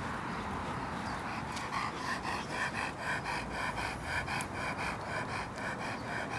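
Irish wolfhound puppy panting in quick rhythmic breaths, about four or five a second, starting about two seconds in.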